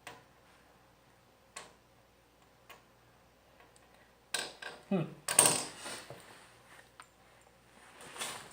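Small metal parts and tools being handled, a few light clicks and then a louder burst of clattering and knocking in the middle, as someone rummages for a part.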